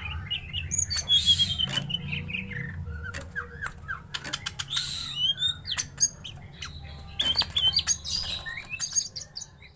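Caged green leafbirds (cucak ijo) calling at each other in an agitated, fighting display: quick rising whistles, chirps and harsh noisy calls, mixed with sharp clicks and wing flutters as they hop about the cage.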